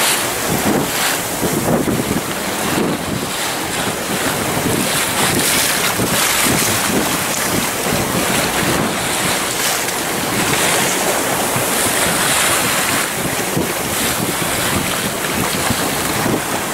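Wind buffeting the microphone over the steady rush and splash of sea water past a boat under way.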